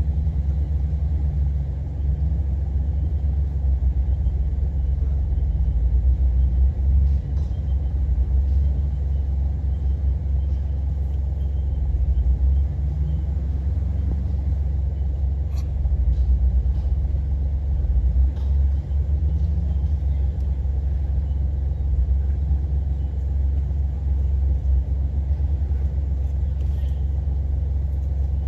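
Off-road 4WD vehicle engine running with a steady low rumble while crawling slowly, with a few faint clicks or knocks.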